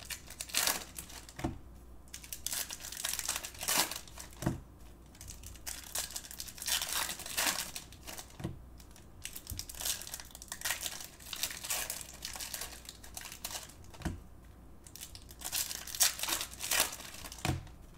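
Foil wrappers of 2019 Bowman baseball card packs crinkling and tearing as packs are opened by hand, in irregular crackly spurts with short pauses between.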